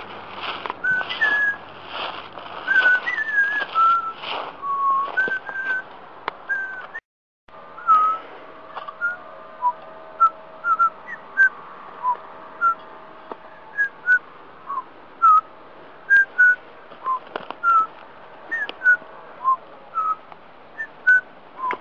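Whistled notes. For the first few seconds they are held, gliding notes over a regular rustle about twice a second. After a brief dropout they become short, scattered chirps.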